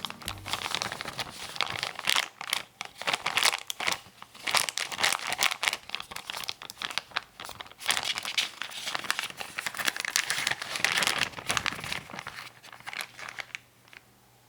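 Handmade paper squishy squeezed and squished in the hands: irregular crinkling and crackling of paper, stopping about a second before the end.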